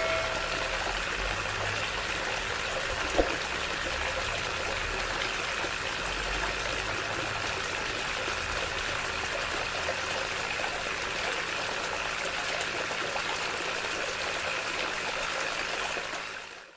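Water running steadily, like a small stream or a trickle. It fades out just before the end.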